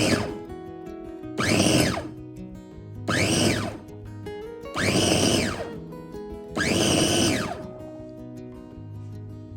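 Electric blender pulsed in five short bursts about a second and a half apart, the motor rising in pitch as it spins up and falling as it stops each time. Soft background music plays underneath.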